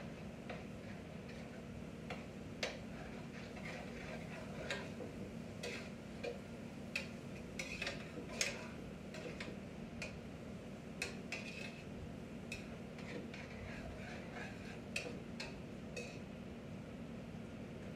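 Kitchen utensils clinking and knocking against pots and dishes during cooking: irregular sharp clicks, a few louder ones around the middle, over a steady low hum.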